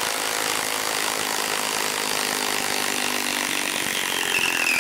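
Milwaukee 2960-20 cordless impact wrench hammering steadily as it drives a lag bolt down into a wood stump. Near the end its motor whine falls in pitch.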